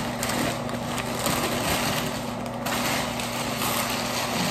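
Sandwich wrapper paper crinkling and rustling as a sub is folded up by hand, over a steady low mechanical hum.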